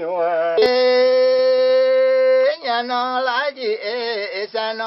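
A man's voice singing a traditional Tamang song in question-and-answer style, with no accompaniment. About half a second in there is a short click, then he holds one long steady note for about two seconds before going on in wavering melodic phrases.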